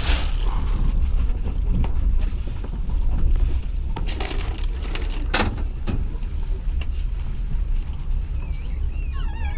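Passenger train carriage running along the line: a steady low rumble, with a few sharp knocks from the wheels over rail joints about four to six seconds in.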